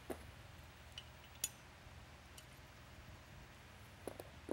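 A few faint, sharp metallic clicks of a small screw being picked up and set against a metal speaker mounting bracket, the loudest about a second and a half in and a couple more near the end.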